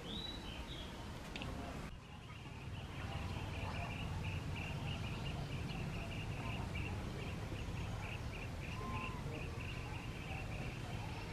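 Outdoor forest ambience: a high, rapid, steady chirping over a low rumble, starting about two seconds in.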